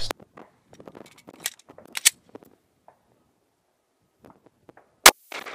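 A single 9mm pistol shot, loud and sharp, about five seconds in, with a ringing echo after it: a Glock 22 fitted with a 9mm conversion barrel firing a Magtech 147 gr bonded hollow point. Before it, a few faint clicks and ticks.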